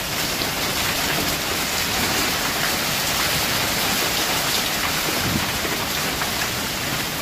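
Heavy rain mixed with hail pelting a wooden deck, a plastic tarp and the water of an inflatable paddling pool: a dense steady hiss with many small sharp ticks of hailstones striking.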